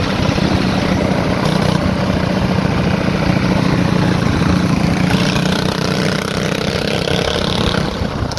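Motorcycle engine running steadily while riding along at speed, with wind noise on the microphone.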